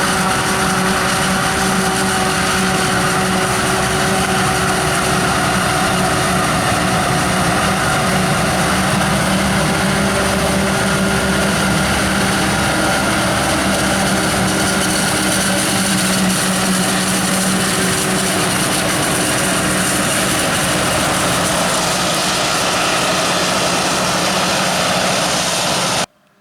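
Diesel engines of maize-harvesting machinery running steadily, a constant loud drone with a steady hum. It cuts off suddenly near the end.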